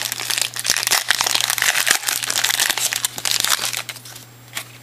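Shiny plastic wrapper of a Topps Turkey Red basketball card pack crinkling and crackling as it is torn open by hand. It dies down just before four seconds in, as the cards come out.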